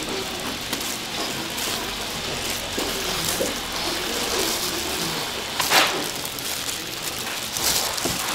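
Food sizzling on a hot pan: a steady crackling hiss, with one sharp knock a little past halfway.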